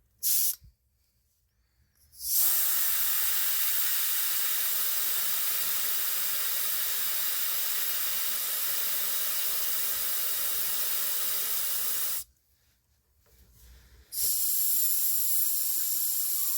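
Air hissing out of a car tire's valve stem as the tire is let down. A short burst just after the start, then a long steady hiss of about ten seconds; it stops for about two seconds and starts again near the end.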